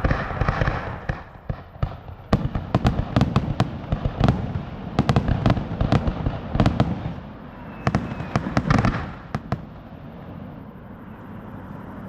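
Fireworks bursting in quick succession: a dense run of sharp bangs and crackles for several seconds, then a few more bangs with a hiss of noise about three-quarters of the way through, thinning out near the end.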